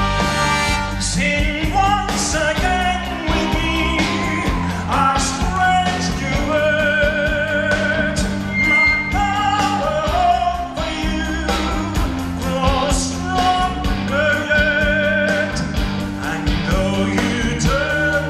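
A woman singing held, vibrato-laden notes into a microphone over a live rock band with drums and bass guitar.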